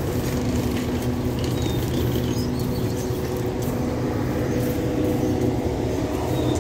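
Diesel-powered express train standing at the platform with its engines idling: a steady, even hum.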